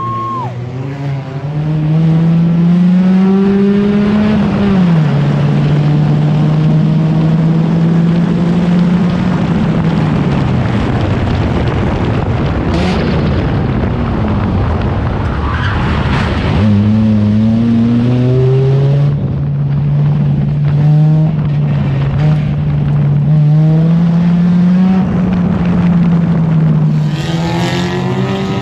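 Enduro race car engine running hard at speed, its pitch climbing and dropping back several times as the throttle comes on and off. There is a rougher, noisier stretch in the middle.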